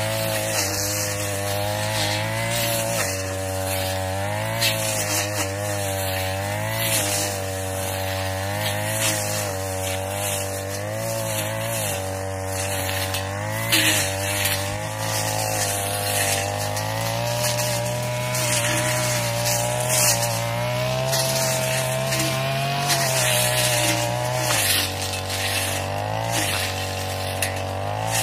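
Backpack brush cutter's small two-stroke engine running at high speed, its pitch dipping and recovering over and over as the blade bites into thick grass and saplings, with the swish of cut vegetation. About 25 seconds in, the engine settles slightly lower.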